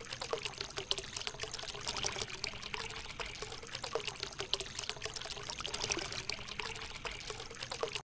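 Water trickling steadily from a homemade tabletop fountain's spout into its gravel-lined basin, with many small droplet splashes.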